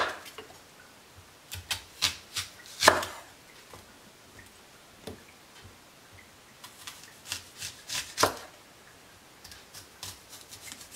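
Chef's knife slicing through an onion into rings and knocking on a wooden cutting board: a string of separate, irregular cuts with pauses between them, the loudest about three seconds in and a quick run of cuts around eight seconds.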